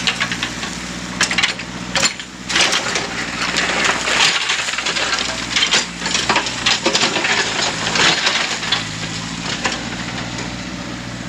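Backhoe's diesel engine running steadily while its bucket digs and scrapes through creek sand, with many sharp crunches and clatters of material in the bucket.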